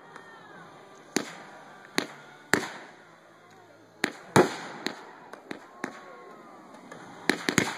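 Aerial firework shells bursting overhead: a series of sharp bangs about a second apart, then several in quick succession near the end.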